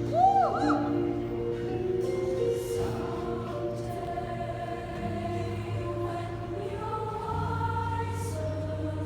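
Vocal ensemble singing sustained chords in harmony, with the chords shifting every second or two and a high voice swooping briefly near the start.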